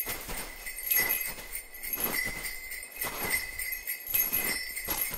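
Small brass jingle bell jingling over and over, about once a second, over a steady high ringing tone.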